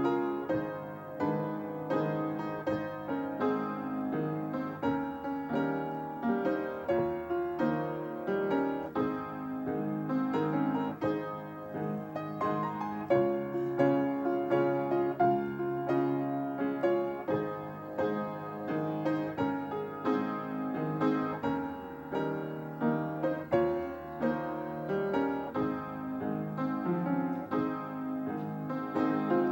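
Solo piano playing offertory music, a steady stream of struck chords and melody notes that ring and decay.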